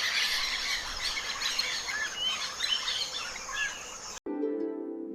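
Rainforest ambience: many short bird chirps over a steady insect hiss. About four seconds in it cuts off suddenly and plucked-string music, like a harp, begins.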